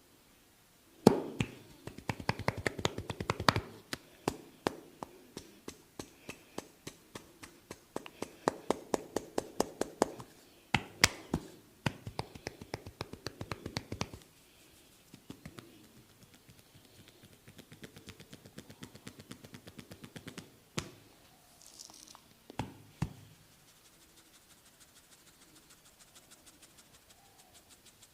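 Percussive hand massage: a barber's hands striking the head and shoulders in quick, evenly spaced taps, in runs of a few seconds with short breaks. The taps turn softer in the second half, followed by a few single sharp slaps.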